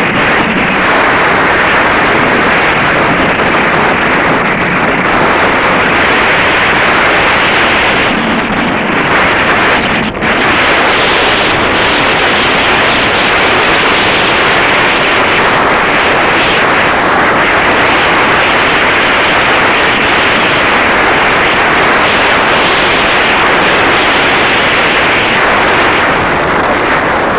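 Heavy wind buffeting the microphone: a loud, steady roar that drowns out everything else, dipping briefly about ten seconds in.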